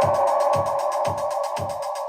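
Electronic music with a steady beat of about two pulses a second and a held synth tone, played back through S90E (35AC-012) loudspeakers with Alphard ETP-1300S2 midrange drivers and TW-318 tweeters.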